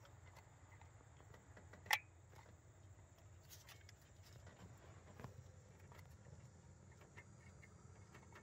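A single sharp plastic click about two seconds in as a wiring-harness connector is snapped onto a GM V8 knock sensor. Otherwise very quiet, with a few faint handling clicks.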